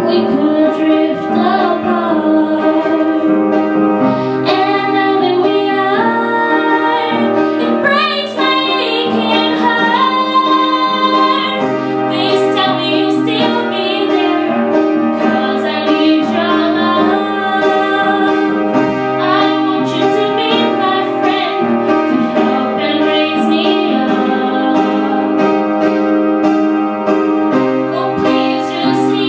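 A woman singing a melody with piano accompaniment.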